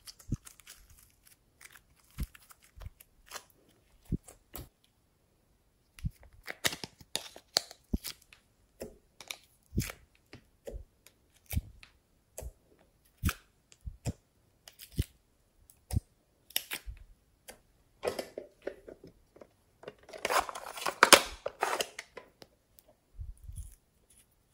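Slime and small plastic pieces handled by hand over plastic trays: scattered soft clicks and sticky crackles, with a busier, louder stretch of crackling about twenty seconds in.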